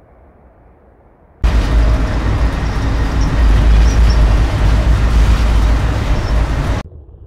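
Moving train heard from on board: a loud, steady rumble and rush that starts abruptly about a second and a half in and cuts off abruptly near the end. Before it, only a faint low outdoor rumble.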